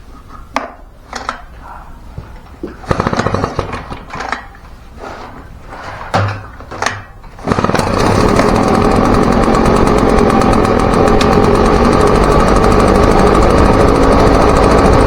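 Husqvarna backpack leaf blower's two-stroke engine being pull-started on choke: several sharp yanks of the recoil starter, then about halfway through it catches and runs steadily and loudly.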